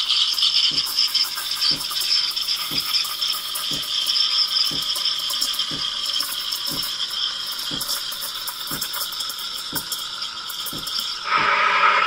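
Espresso machine steam wand frothing whole milk in a stainless steel pitcher: a steady hiss with a faint tick about twice a second. About eleven seconds in, the hiss turns lower and louder.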